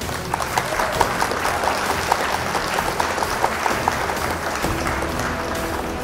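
Large audience applauding to welcome a guest, with a quick regular beat of about five ticks a second through the first few seconds; the clapping eases off near the end.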